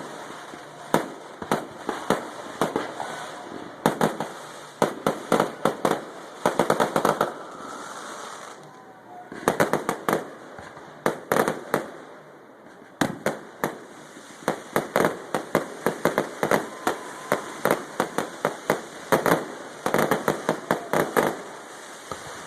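A fireworks display: a long run of sharp bangs from bursting shells, often in rapid clusters, with brief lulls twice along the way.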